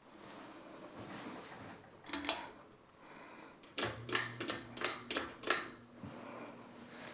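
Sharp mechanical clicks: two close together about two seconds in, then a quick run of six at roughly three a second, with a faint low hum underneath as the run begins.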